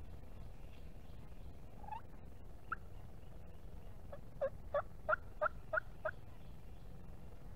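Wild turkey calling: a couple of single notes, then a run of seven quick yelps about three a second that stop abruptly, over a steady low rumble of background.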